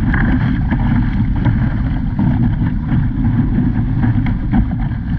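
Wind buffeting the microphone of a deck-mounted camera on an ILCA (Laser) sailing dinghy, a loud steady low rumble, over the rush and splash of water against the hull as the boat drives through chop.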